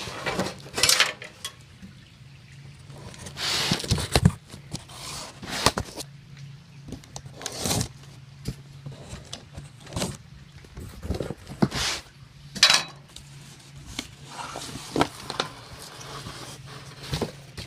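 A cardboard shipping box being cut and opened, with packaging handled: irregular scrapes, rustles and knocks, a dozen or so, separated by short pauses.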